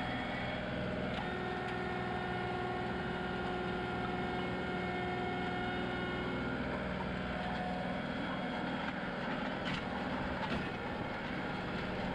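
John Deere 2038R compact tractor's three-cylinder diesel engine running steadily under load while it pulls a soil pulverizer over loose dirt, with a couple of light clicks about ten seconds in.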